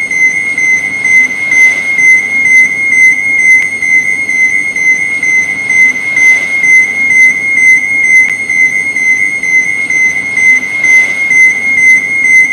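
Electronic overload warning alarm: a continuous high-pitched beeping siren tone, pulsing in loudness about one and a half times a second.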